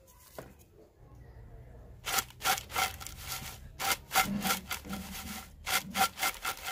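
Fried potato finger chips rattling and scraping inside a terracotta bowl as it is shaken and tossed to coat them with masala, in a quick run of strokes about three a second starting about two seconds in.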